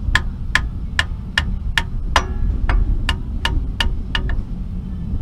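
A new rear-differential pinion seal being tapped into its bore: light, sharp metal taps about two and a half a second, pausing briefly twice, driving the seal in until it bottoms out against the housing.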